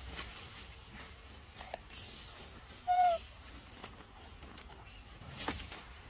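A single short, clear animal call just before the middle, dipping slightly in pitch, over faint outdoor background with a few small ticks.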